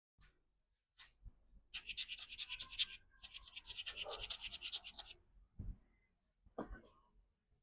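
Faint, quick back-and-forth scrubbing strokes in two runs of a second or two each, with a few light clicks of parts being handled.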